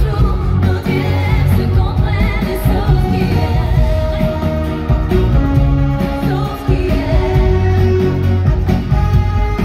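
Live pop band with a female lead singer, drums, electric guitars and a horn section playing loudly, heard from among the audience.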